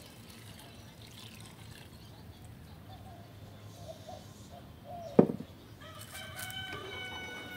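Rooster crowing near the end, with faint fowl calls before it. A single sharp knock about five seconds in is the loudest sound.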